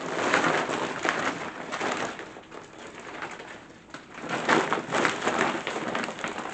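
Rustling and shaking of a duffel bag as it is emptied of crocheted plushies onto a chair, in bursts with a quieter lull midway.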